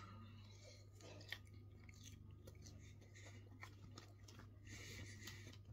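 Faint chewing of a mouthful of fries, with a few soft mouth clicks scattered through it.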